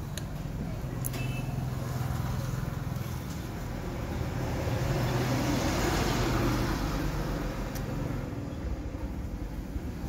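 Road traffic: a motor vehicle going by, swelling to its loudest about five to seven seconds in and then fading, over a steady low hum, with a few light clicks.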